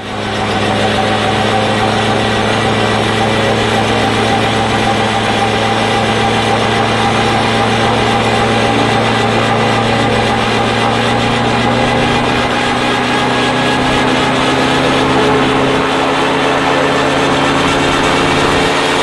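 Rotax 914 turbocharged flat-four engine of a tandem Dominator gyroplane, heard from on board, running steadily on the runway. Its pitch climbs slowly in the last few seconds as the power comes up.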